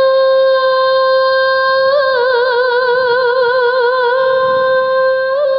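Music: one long held note hummed by a single voice, steady at first, then wavering in a slow vibrato from about two seconds in, and steady again near the end.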